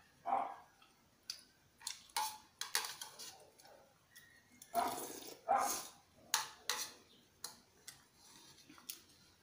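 Metal spoon clinking and scraping against a ceramic soup bowl while macaroni soup is eaten: a string of short, sharp knocks, with a few louder sounds about five seconds in.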